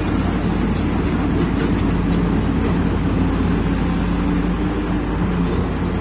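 Heavy truck diesel engine running steadily at idle: an even low rumble with a constant hum that does not change.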